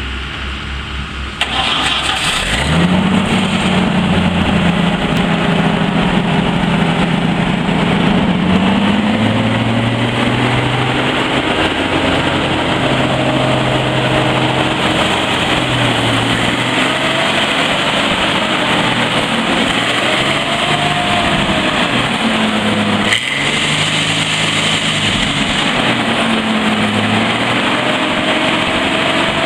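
Chipmore wood chipper's engine running. It surges up in speed and loudness a couple of seconds in, then holds a steady high-speed run with its pitch wavering slightly. One sharp knock comes about 23 seconds in.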